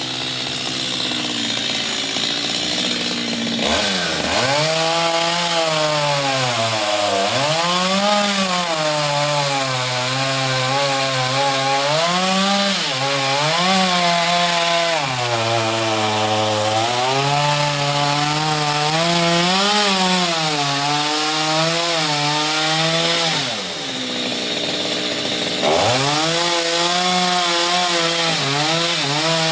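Chainsaw cutting mango wood. It runs at a lower, steady note for the first few seconds, then goes to full throttle, its pitch dipping and climbing again and again as the chain bites under load. Near the end it falls back to idle for about two seconds, then revs up and cuts again.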